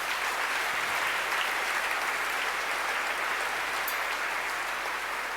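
An audience applauding steadily, a dense patter of many hands clapping that swells in just before and eases off slowly toward the end.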